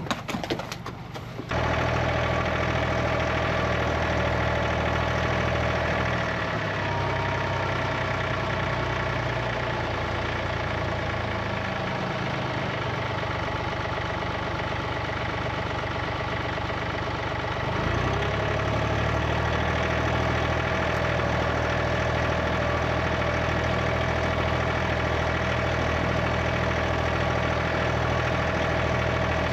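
A vehicle engine running steadily, easing off a little about six seconds in and picking up again with a short rise in pitch about eighteen seconds in. A few knocks sound just before the engine comes in.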